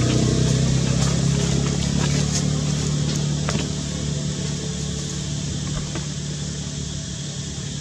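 A motor vehicle's engine running steadily with a low hum, slowly fading away. A few faint clicks sound over it.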